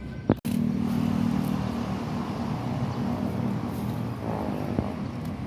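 Large diesel bulldozer engine running steadily. It is preceded by a sharp click and a split-second gap just after the start.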